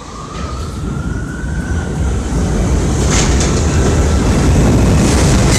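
New York City subway train accelerating: an electric traction-motor whine rising in pitch over the first two seconds, over a rumble of wheels on the track that grows steadily louder. A short high hiss comes about three seconds in.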